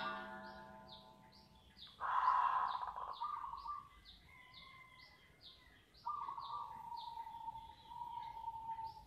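Perkutut (zebra dove) cooing in phrases: one about two seconds in, and a long held, slightly falling note from about six seconds on. Short high chirps from another small bird repeat about twice a second throughout.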